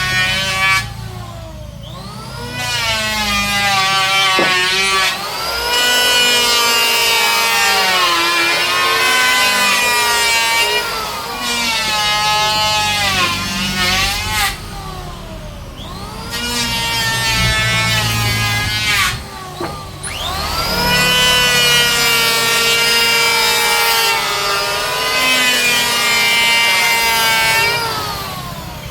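An electric woodworking power tool cutting wood. Its motor whines up to speed several times, bogs down and recovers as it bites into the wood, and eases off between passes.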